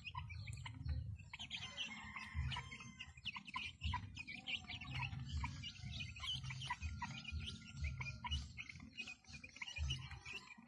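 A flock of young native chickens peeping and chirping rapidly and continuously as they feed, with repeated low, dull thuds underneath.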